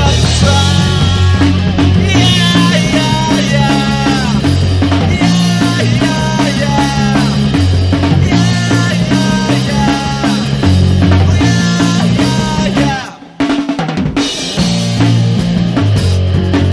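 Rock music: a band with a drum kit and bass under bending melody lines. About 13 seconds in the band briefly breaks off, then comes back in.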